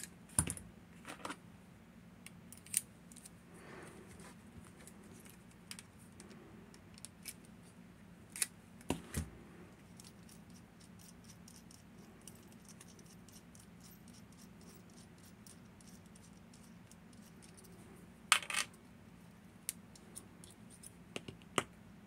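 Scattered small metallic clicks and taps from tools and parts of a Miwa VM88 cam lock being handled as the lock is taken apart. The clicks come irregularly, with long gaps between them, and the loudest is past the middle. A faint steady low hum runs underneath.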